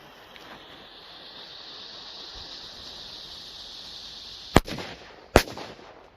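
A lit firecracker fuse hissing steadily for about four and a half seconds, then two sharp firecracker bangs less than a second apart.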